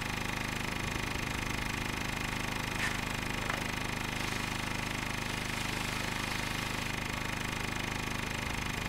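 A steady mechanical drone with a fast, even pulse, like an engine running, unchanging throughout. Two faint clicks come about three seconds in.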